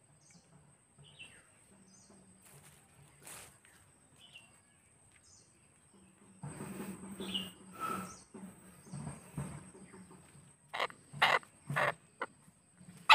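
Small birds chirping in short calls over a steady high-pitched buzz. From about six seconds in, louder irregular noisy sounds come in, with several sharp ones near the end.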